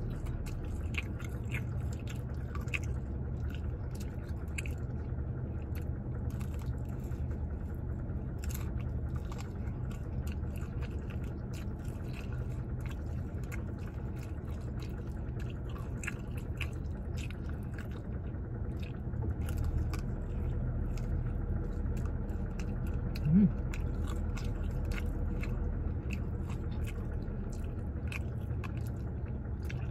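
A person biting and chewing a breaded fried chicken strip, with scattered soft crunches and wet mouth clicks throughout, over a steady low hum. A brief, louder sound with a short rise in pitch comes about three-quarters of the way through.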